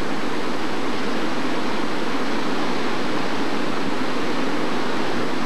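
Floodwater rushing through a wash around a stranded truck, a steady, even rush of noise.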